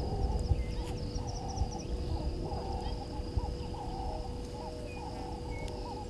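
Morning bird chorus: many short low calls repeating and overlapping, with thin high chirps above them, over a low rumble and a faint steady tone.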